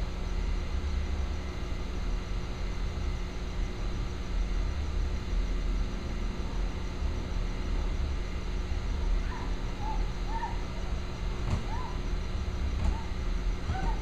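Steady low rumble of street ambience with a constant faint hum, with a few short, faint calls starting about two-thirds of the way in.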